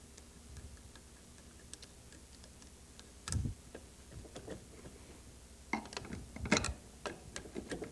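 Screwdriver working the V-clamp that holds the brass pump to the electric motor of a Shoo-fly misting unit: faint ticks of the tool, a short knock about three seconds in, and a cluster of metal clicks and knocks near the end as the clamp and pump are handled, loosening the pump for removal.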